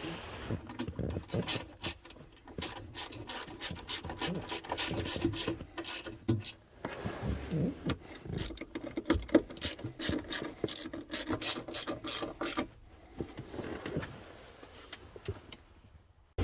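Quick runs of clicking and rasping, like a ratchet spanner being worked, stopping about thirteen seconds in.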